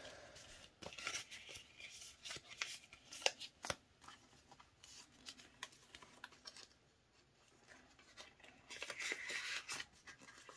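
Hands handling banknotes and a clear plastic zip pocket in a ring-binder wallet: soft rustling of plastic and notes with small clicks and ticks. There is a quiet stretch about two thirds in, then more rustling near the end.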